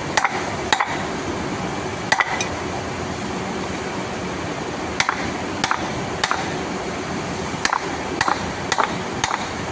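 About a dozen sharp hammer taps at uneven intervals, some in quick pairs, over a steady background hum, as a tension pulley bearing is worked on during its replacement.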